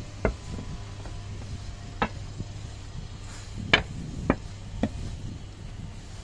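Train wheels knocking over rail joints and points: five sharp clunks over a steady low hum, three of them about half a second apart in the middle.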